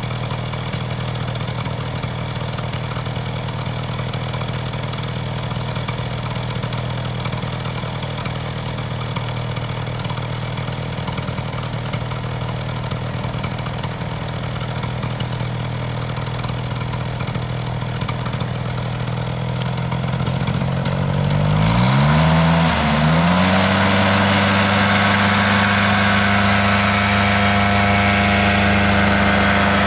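Powered paraglider trike's engine and propeller idling steadily, then throttled up about 21 seconds in to a higher, louder steady run: full power for the takeoff run as the wing comes up overhead.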